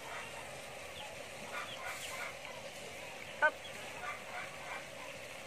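Scattered short animal calls and chirps, with one louder, brief honk-like call about three and a half seconds in.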